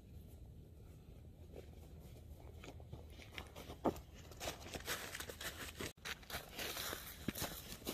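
Footsteps crunching through dry fallen leaves and dead grass, faint at first and growing louder as the walker comes close, with one sharp tap about four seconds in. The crunching cuts out for an instant just before six seconds and then goes on.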